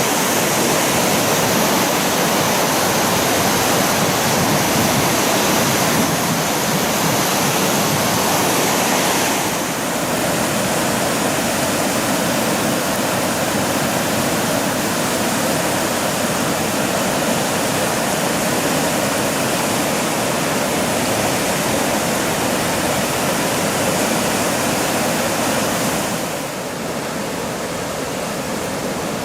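Floodwater rushing through the fully opened Kamaguchi sluice gates into the Tenryu River: a loud, steady rush of high water. The sound shifts about a third of the way in and drops slightly near the end.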